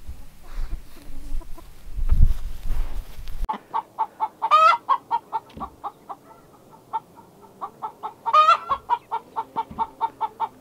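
After a few seconds of low rumbling noise, an Icelandic hen cackles: a fast run of short clucks, about four a second, broken twice by a long drawn-out squawk.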